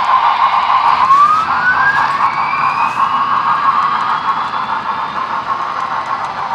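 Model train rolling past on the layout track with a steady whirring rumble, while a thin tone sweeps steadily upward in pitch from about a second in.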